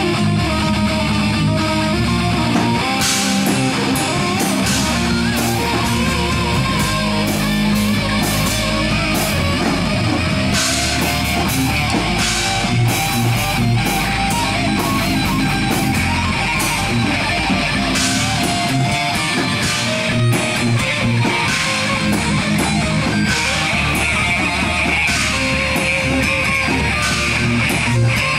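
Live heavy metal band playing: distorted electric guitars over drums, with cymbal crashes standing out about 3, 10 and 12 seconds in.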